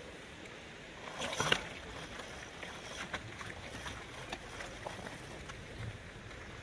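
Small electric ATV's knobby tyres rolling over loose rocks and gravel: a steady crunching with scattered knocks and clacks of stones, the loudest cluster about one and a half seconds in.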